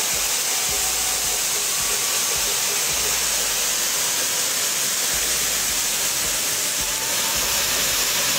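Ananda Fireworks 'Sunrise' peacock-style fountain firework spraying sparks from its nozzles with a steady, loud rushing hiss.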